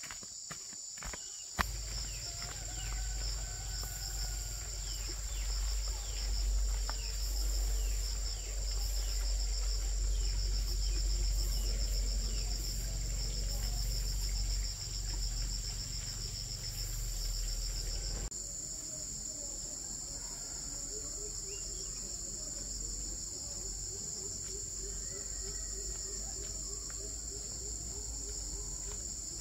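Steady high-pitched insect chorus with a fast pulsing trill. A low rumble sits under the first part and stops abruptly about eighteen seconds in.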